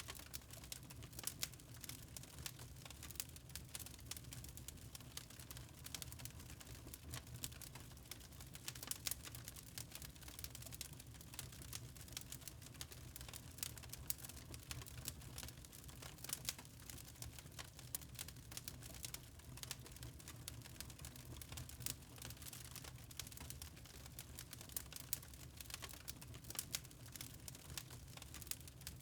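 Fire in a fireplace crackling: irregular small pops and snaps over a low steady rumble.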